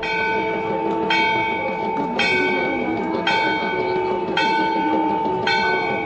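Temple bell struck at a steady pace, about once a second, each stroke ringing on into the next.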